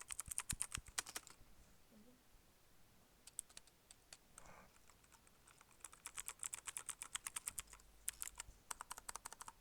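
Keys of an iBox Aurora K-2 computer keyboard being pressed in quick runs of clicks, with a pause in the middle before a longer flurry of rapid keystrokes.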